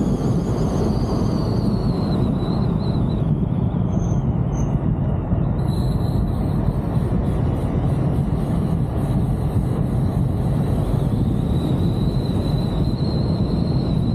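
Steady rumble of wind and road noise picked up by a camera mounted on an off-road vehicle as it drives along, with a faint high whine that drifts down in pitch over the first few seconds and rises again near the end.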